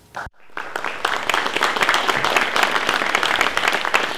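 Audience applauding, many hands clapping at the end of a talk. It starts about half a second in, builds quickly and stays steady.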